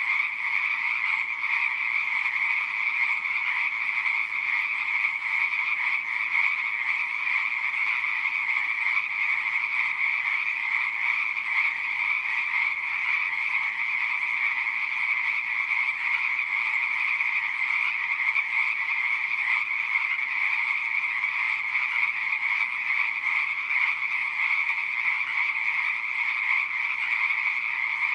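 Chorus of many frogs calling at once, a steady, unbroken mass of overlapping calls with no pauses.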